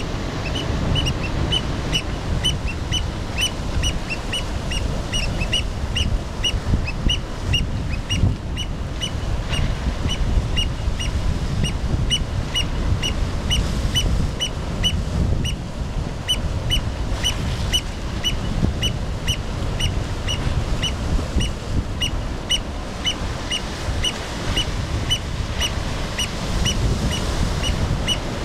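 Black oystercatchers giving a steady run of short, sharp, high piping calls, about two to three a second, over the low rumble of surf breaking on rocks.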